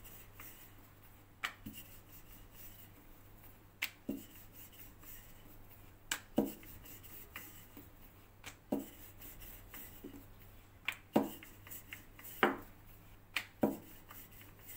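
Wooden rolling pin working a thin sheet of flour dough on a counter: soft rubbing with a dozen or so irregular light knocks and clicks as the pin and hands touch the surface and the sheet is lifted and turned.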